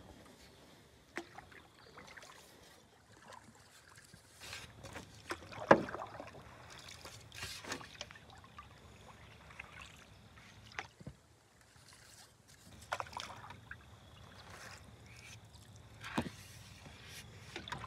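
Cedar otter-tail canoe paddle stroking through calm water, with drips, small splashes and occasional sharp knocks. The loudest knock comes about six seconds in.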